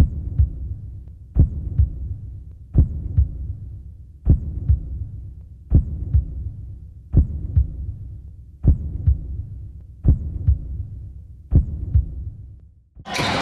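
Heartbeat sound effect: slow low double thumps, lub-dub, about one beat every second and a half, nine beats in all. Near the end it stops and the busy noise of a basketball gym cuts in.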